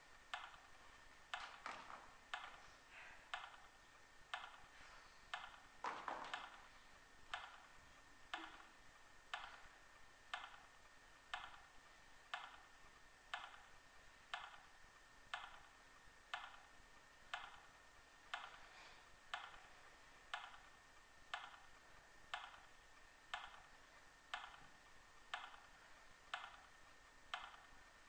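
Steady, even clock-like ticking, about one tick a second, with a faint high whine underneath.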